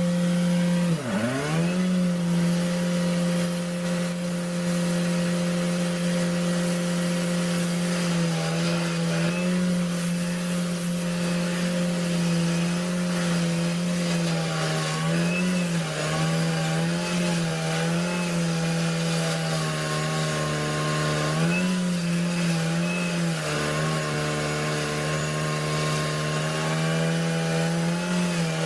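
A power saw running at a steady high pitch, its pitch sagging sharply about a second in and dipping briefly several more times later as it takes load in the wood.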